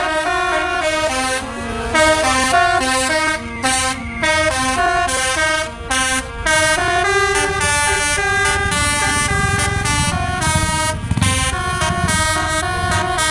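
Bus telolet horn, a multi-trumpet air horn, playing a stepped melody with several notes sounding together and changing pitch rapidly. A low rumble rises under it in the second half.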